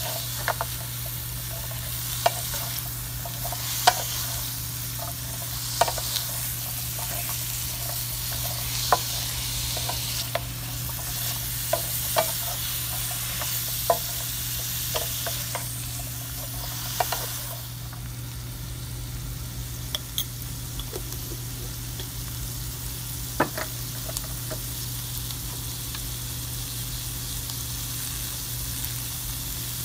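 Asparagus sizzling in a hot pan, stirred with a wooden spatula that clicks and knocks against the pan every second or two. The stirring thins out after about eighteen seconds while the sizzling carries on, over a steady low hum.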